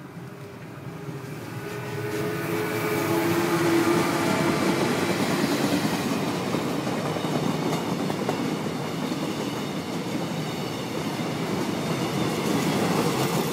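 Korail electric locomotive and its passenger coaches passing at speed, loud and close. The sound swells as the locomotive arrives, with a humming tone as it goes by, then the steady rumble and clatter of the coaches' wheels on the rails.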